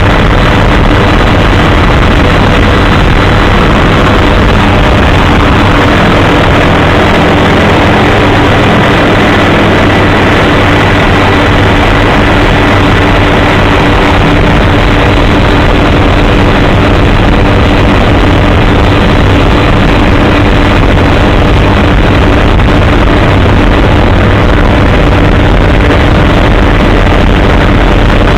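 Helicopter in flight: loud, unchanging engine and rotor noise, with a few steady tones running under a dense drone.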